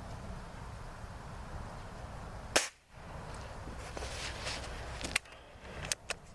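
.177-calibre pellet air rifle firing once, a sharp crack about two and a half seconds in. A few lighter clicks follow near the end.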